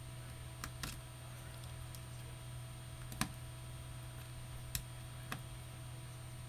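Small, sharp clicks and taps of a Phillips screwdriver and tiny screws as the back screws of a Samsung Galaxy W smartphone are taken out: about five scattered clicks, the loudest about three seconds in, over a low steady hum.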